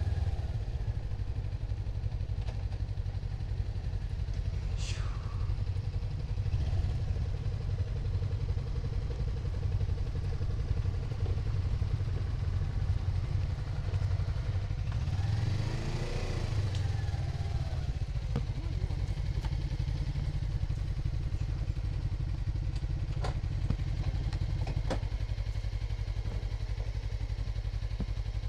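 Suzuki V-Strom 250's parallel-twin engine running steadily at low revs, a low drone as the bike rolls slowly and comes to a stop.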